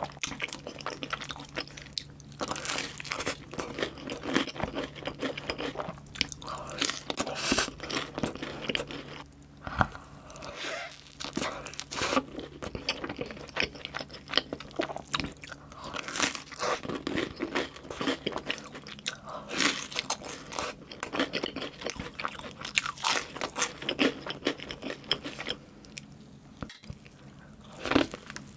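Close-miked ASMR eating: crispy fried food coated in cheese sauce being bitten and chewed with loud, irregular crunches and wet mouth sounds. It goes on without pause, with a bite into a cheeseburger near the end.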